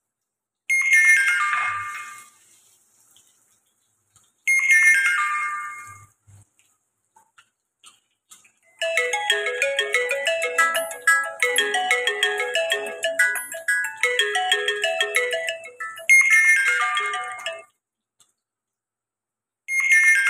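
Electronic chime sound: a quick falling run of bright notes, heard four times, with a tinkling ringtone-style melody of rapid notes between the third and fourth runs, lasting about nine seconds. Between the chimes there is dead silence, with no sizzling from the pan.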